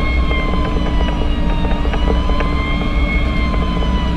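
Fire engine siren wailing, its pitch slowly rising and falling, over loud engine and road rumble from the moving pumper.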